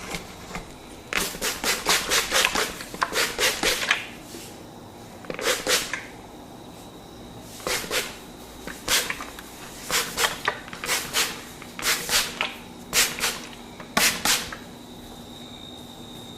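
A barber's hands making quick, sharp slapping and snapping sounds during a head massage, in bursts of several rapid strokes with short pauses between, each burst about half a second to a second long.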